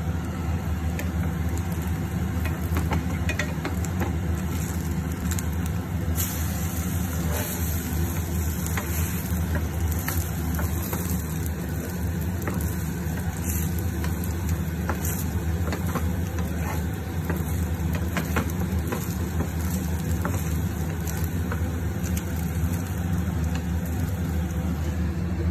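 French toast frying in a nonstick pan on a gas stove: light sizzling and occasional scrapes and taps of a wooden spatula, over a steady low hum that is the loudest sound throughout.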